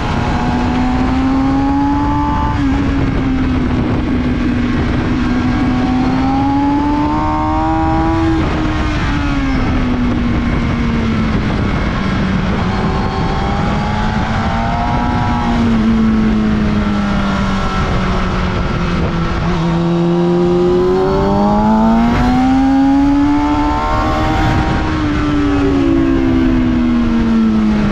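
Kawasaki ZX-6R 636's inline-four engine heard onboard at speed on a race track, its pitch rising and falling over several seconds at a time as the rider accelerates and backs off through corners. A steady rush of wind noise runs underneath.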